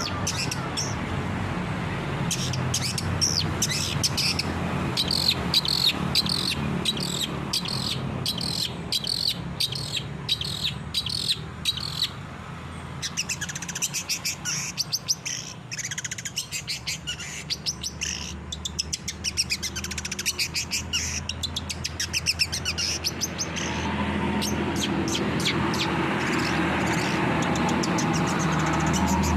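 Long-tailed shrike (cendet) singing: fast, chattering runs of short, high chirps and trills. Near the end a lower, fuller sound comes in under the chirping.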